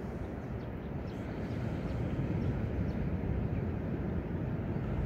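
Steady low rumble of ocean surf breaking on a sandy beach, with a few faint high chirps about a second in.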